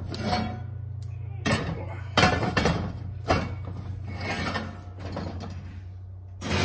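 A heavy cast-iron pot set as a lid over the base of a cast-iron combo cooker: several clanks and scrapes of iron on iron from about a second and a half in, with more knocks near the end as the cooker is lifted away. A steady low hum runs underneath.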